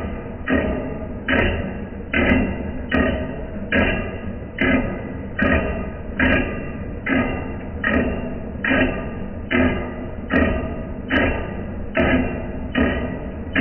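Lathe running with a regular knock about every 0.8 s, each knock ringing briefly before the next.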